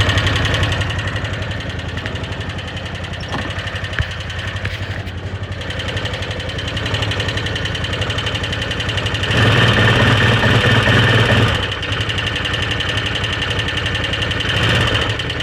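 Arctic Cat Wildcat 1000 H.O. UTV engine idling with a rapid, even ticking, which the owner places at the rear top cylinder. The engine runs louder for about two seconds near ten seconds in.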